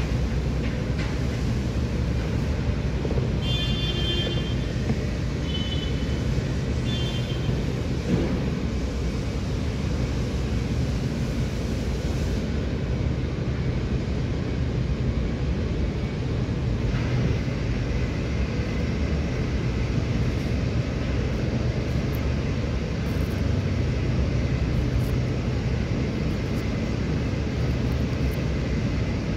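Steady low rumble of background noise, with three short high-pitched chirps about four to seven seconds in.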